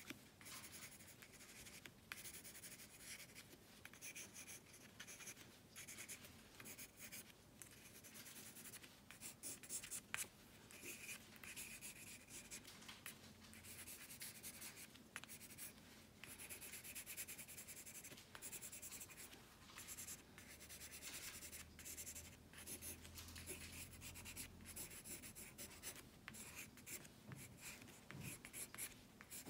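Faint scratching of a pencil on paper in quick, short, irregular strokes as a drawing is shaded and hatched.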